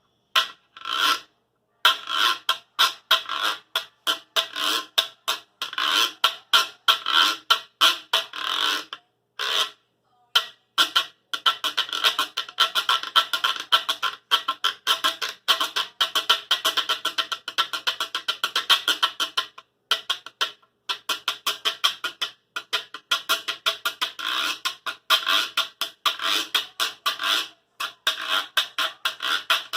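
Plastic Cuban güiro scraped with a scraper in quick rhythmic strokes, a dense run of short ridged scrapes broken by a few brief pauses.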